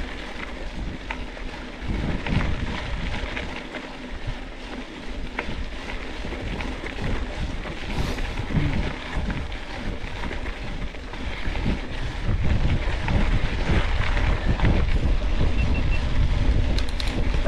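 Wind buffeting the microphone over the rumble and rattle of a mountain bike riding a dirt trail. It gets louder about twelve seconds in.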